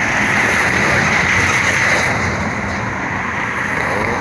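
Heavy tractor-trailer passing close by on a bridge: a loud rush of tyre and engine noise that swells about a second in and then slowly fades.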